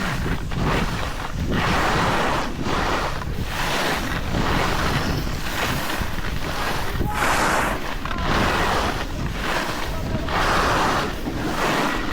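Skis hissing and scraping over snow through a series of turns, the noise swelling and fading about once a second, with wind rushing over the microphone.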